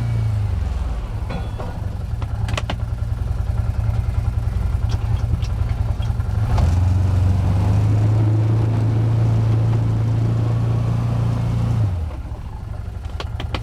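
Can-Am Commander 1000 side-by-side's Rotax V-twin engine running under load while plowing snow. Its note drops just after the start, rises about six and a half seconds in, holds steady, then drops again about twelve seconds in, with a few sharp clanks along the way.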